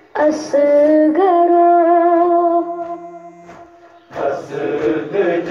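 A boy's voice chanting a Kashmiri noha, a Shia lament, without instruments, holding long, drawn-out notes. About four seconds in, a fuller chorus of voices comes in.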